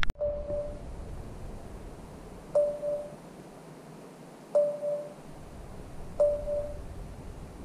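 Fish-finder sonar app on a smartphone sounding its fish alarm: four short electronic beeps, each a single steady mid-pitched tone of about half a second with a click at its start, coming every two seconds or so.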